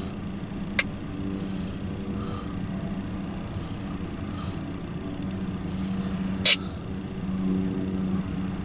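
Norfolk Southern intermodal freight train rolling past: a steady low rumble with a steady hum, broken by two sharp clicks, one about a second in and one near the end.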